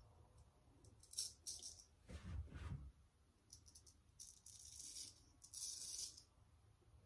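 Straight razor scraping through lathered beard stubble in several short strokes, each a crisp, crackling rasp. A duller, softer rush of noise comes between the strokes about two seconds in.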